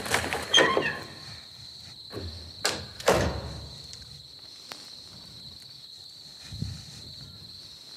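Knocks and thuds, like steps on a wooden stage: a cluster of sharp knocks in the first second, two more about three seconds in, and a soft thump near the end, over a steady high-pitched whine.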